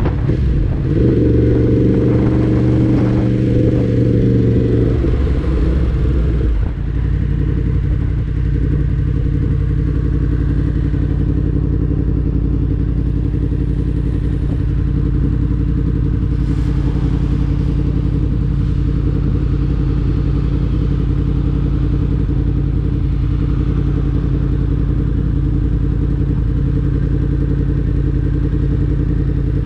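2019 Yamaha MT-10's crossplane inline-four engine running steadily as the bike rolls, then dropping to a steady idle about six to seven seconds in and holding there while the bike stands.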